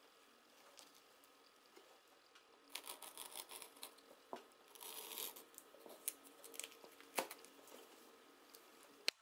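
Clear plastic tape rustling and crinkling as it is handled and peeled off a board, with small clicks. Near the end comes one sharp scissors snip.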